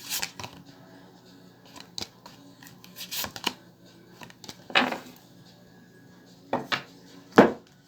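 Tarot cards being handled: a few short, separate papery flicks and slaps as cards are drawn and laid down, the loudest near the end.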